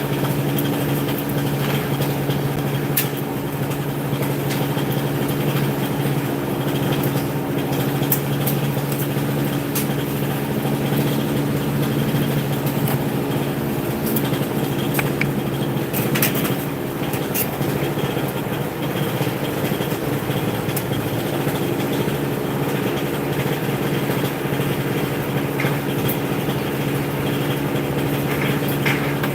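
An engine or motor running steadily at a constant pitch, with scattered light clicks and knocks over it.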